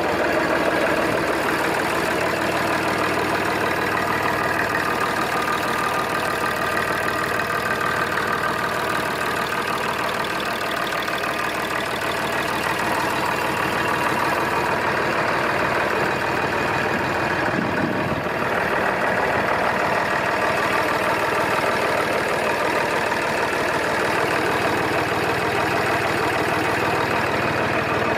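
Massey Ferguson 35 tractor engine idling steadily.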